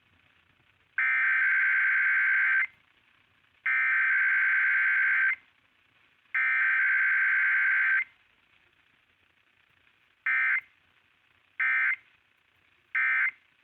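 Emergency Alert System SAME digital data bursts received over AM radio. Three buzzy warbling header bursts of about 1.7 s each are followed by three short end-of-message bursts, with no long attention tone between them, the pattern of a required weekly test.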